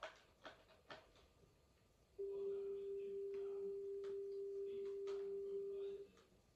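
A steady pure tone from the start of a VHS tape, coming in abruptly about two seconds in, holding level for nearly four seconds, then cutting off, over faint tape hiss. A few short clicks come in the first second.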